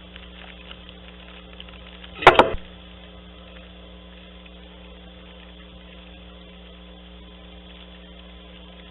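A steady low hum with a short, loud clatter about two seconds in.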